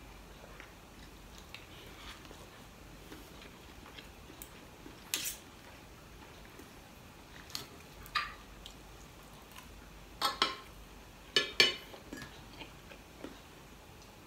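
Metal fork and spoon clinking against a ceramic plate while eating: a few scattered sharp clinks, the loudest a quick pair about two-thirds of the way through.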